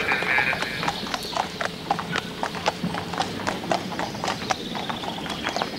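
Hooves of several horses being led at a walk, clip-clopping in irregular, overlapping hoofbeats, several a second.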